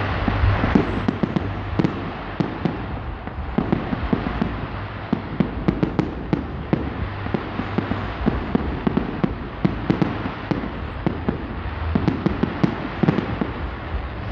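Fireworks going off in rapid succession: a dense crackle of sharp pops and bangs, many each second, over a steady low rumble.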